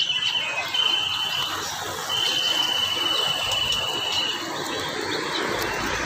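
High-pitched trills, three in all: a short one at the start, another about a second in, and a long one of about two seconds from about two seconds in, over a steady background hiss.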